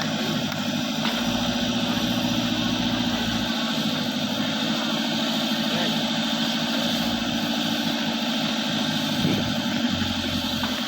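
Diesel engine of a JCB backhoe loader running at a steady speed, with a constant-pitched hum.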